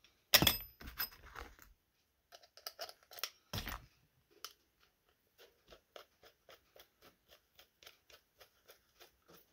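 A screwdriver driving the screws back into a Ski-Doo vacuum fuel pump body. There is a loud knock about half a second in and another a few seconds later, then an even run of short clicks, about four a second, as the screws are turned in.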